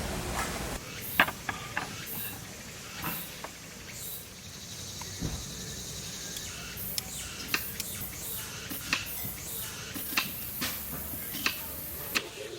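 A series of light, sharp clicks and taps at irregular intervals over a faint steady hiss.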